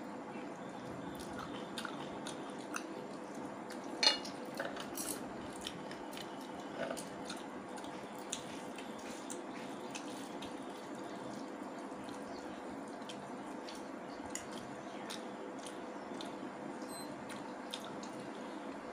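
Eating by hand: chewing, and fingers squishing and mixing rice and curry on a plate, with scattered small clicks against the plate. One sharper click comes about four seconds in, and a steady background hum runs under it all.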